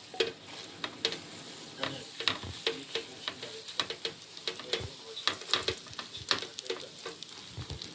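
Jeon (Korean pan-fried pancakes) frying in oil in a pan: a steady sizzle with frequent sharp clicks and taps throughout.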